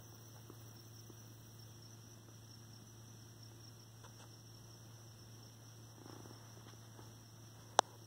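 Crickets singing in a faint, steady high-pitched chorus over a low steady hum, with a single sharp click near the end.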